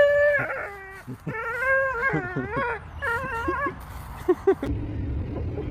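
A dog whining in a series of long, wavering, high-pitched cries, then two short yelps. Near the end the sound cuts to a low steady hum.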